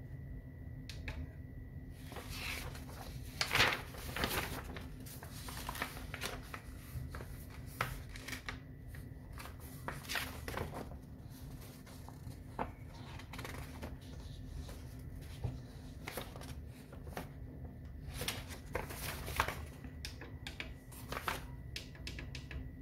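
Paper pages of a printed manual rustling and being turned by hand, in irregular bursts, with a few light clicks. A faint steady high whine and low hum run underneath.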